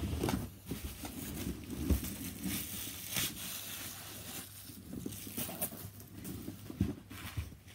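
Handling noise as a folded Segway Ninebot ES2 electric scooter is lifted out of its cardboard box: the cardboard and packaging scrape and rustle, with a few scattered knocks.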